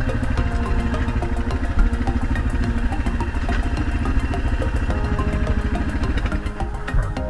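Dual-sport motorcycle engine running at low speed with a rapid, even putting as the bike rolls slowly along, easing off slightly near the end.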